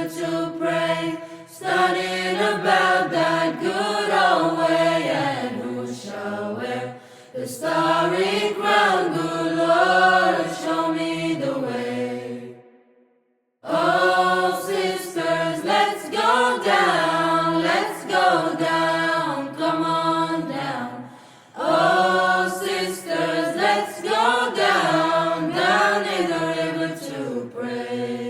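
Chant-like sung vocal music in long melodic phrases, with a short complete break about thirteen seconds in and a fade-out near the end.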